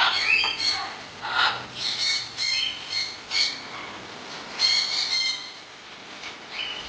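Birds squawking: a string of short, harsh calls, some in quick runs, with a loud cluster about five seconds in.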